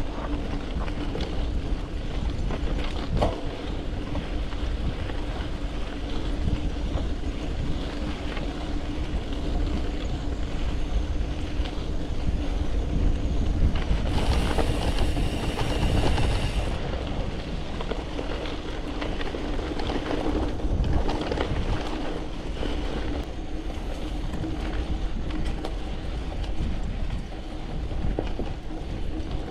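Poseidon X Ambition gravel bike rolling fast over a sandy, gravelly dirt road: steady tyre crunch and rattle of the bike, with wind on the microphone. A brief high buzz comes about halfway through.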